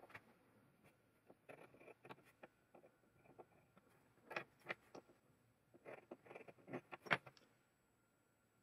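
Faint, scattered clicks, taps and light scratches of a metal scribe and small parts being handled on a wooden workbench while an outline is marked, with a few sharper ticks about four and a half and seven seconds in.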